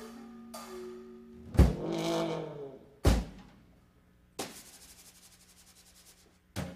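Orchestral cartoon-soundtrack music punctuated by percussion effects: a loud low drum hit with a brief swooping pitched tone about a second and a half in, a second heavy drum hit about three seconds in, then a fast rattle that fades away, and one more hit near the end.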